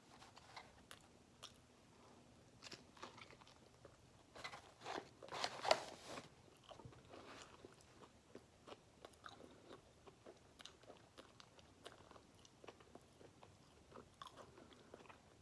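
A person eating a grilled chicken sandwich with lettuce and tomato: faint, wet chewing clicks throughout, with a louder spell of biting and crunching about five seconds in.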